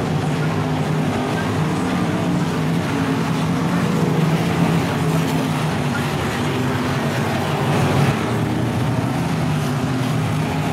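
Dirt-track race car engines running steadily at speed on the oval, with no let-up.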